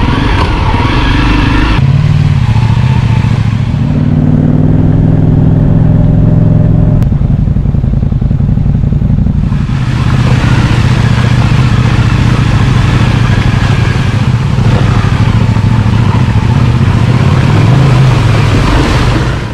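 Honda dual-sport motorcycle engine running steadily under way. From about ten seconds in, a hiss of spray and splashing joins it as the bike fords a shallow rocky creek.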